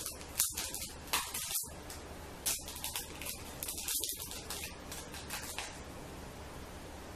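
Ribbon cord being handled and tied into a knot: a run of short rustling, brushing sounds that die away about six seconds in, over a steady low hum.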